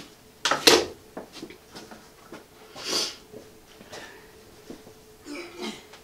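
A tape measure and wooden boards handled on a table saw top: a clattering knock about half a second in, then a few lighter clicks and knocks. A soft rushing noise swells and fades about three seconds in.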